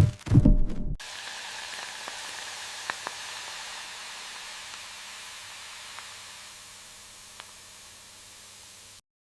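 A few knocks in the first second, then a steady hiss with a few faint ticks that slowly fades and cuts off near the end.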